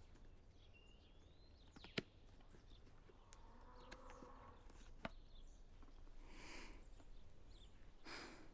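Near silence: faint room tone with two soft clicks, about two and five seconds in, and a brief faint rustle near the end.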